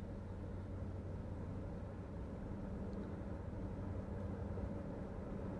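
Low, steady diesel engine rumble with a held hum, from the locomotive of an approaching freight train heard at a distance.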